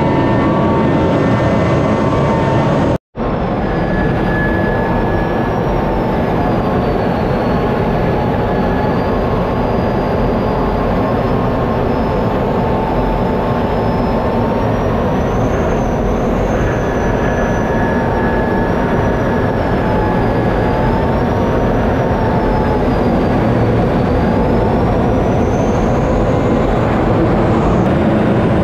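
Steady in-cockpit noise of a KAI T-50 jet trainer in flight: its single F404 turbofan and the rush of air over the canopy, with faint whines that waver slightly in pitch. The sound drops out for an instant about three seconds in.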